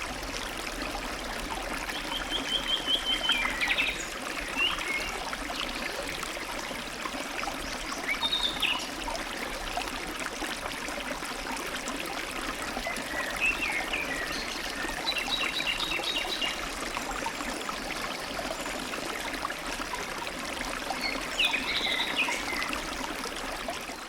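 Stream trickling and babbling steadily, with songbirds calling over it in short phrases several times, among them a rapid trill of repeated notes about two seconds in.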